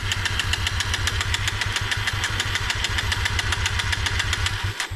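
Kawasaki KLX150's single-cylinder four-stroke engine turning over with an even, rapid beat of about ten pulses a second, stopping abruptly near the end.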